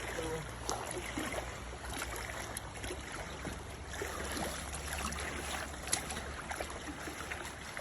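Flowing river water with scattered small splashes and ticks, over a steady low rumble.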